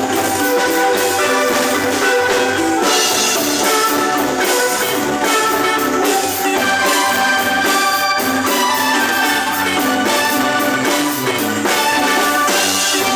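Marimba band playing a lively tune, many quick notes struck on the wooden bars, with drums keeping a steady beat.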